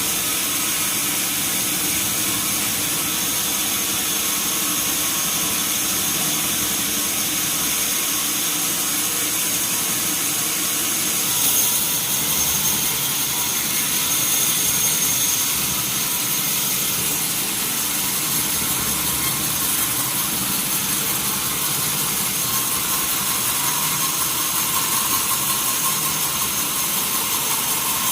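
Sawmill band saw running steadily, a continuous machine noise with fixed whining tones and a hiss, growing briefly louder and hissier about twelve seconds in and again near fifteen seconds.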